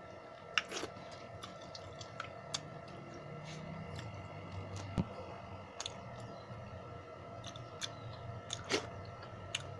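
A person chewing a mouthful of pakhala (rice soaked in water) eaten by hand, with scattered small clicks as the fingers work the rice in steel bowls; one sharper click about halfway through.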